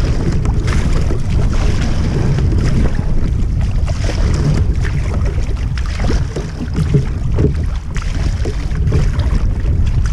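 Heavy wind noise on the microphone of a kayak-mounted camera, over the splash of a double-bladed paddle stroking through choppy sea water.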